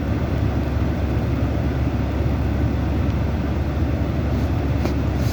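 Steady low rumble of vehicle noise with no distinct events.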